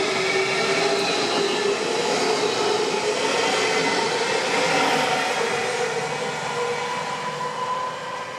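Siemens Desiro HC (RRX) electric multiple unit running past on the track, its motor whine made of several tones slowly falling in pitch over the rolling noise of its wheels on the rails.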